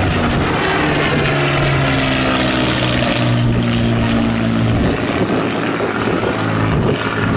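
Propeller aircraft in flight, a Supermarine Spitfire's V12 piston engine droning steadily, its note shifting lower partway through.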